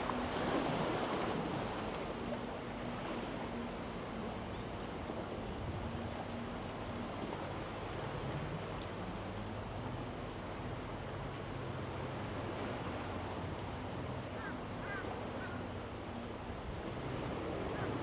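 Steady wash of sea surf, with a faint low hum underneath. A few faint, short bird chirps come near the end.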